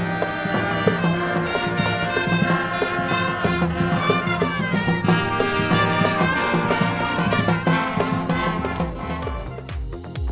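Brass music with horns carrying a melody over a steady low bass line.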